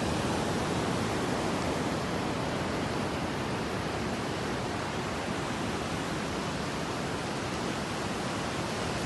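Steady rushing noise of surf and wind on an open beach, with no separate wave breaks standing out.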